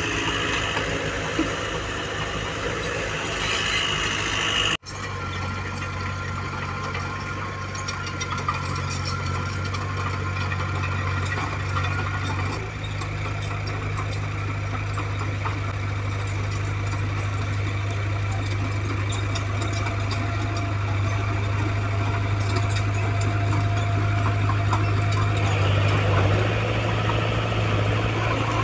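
Diesel engine of earthmoving equipment running steadily with a low hum, broken by a momentary dropout about five seconds in.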